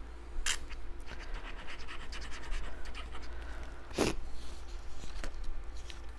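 Scratching and rustling from hands working with craft materials, with two sharp taps, one about half a second in and a louder one about four seconds in.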